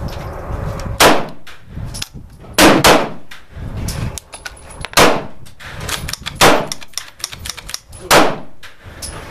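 Gunshots on an open shooting range: about six loud, sharp cracks at irregular intervals, two in quick succession about three seconds in, with fainter shots between. They come from a Winchester Wildcat .22 LR semi-automatic rifle and a pistol fired in the next bay.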